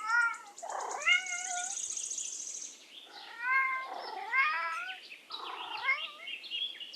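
Domestic cat meowing repeatedly, about five short meows with pauses between them.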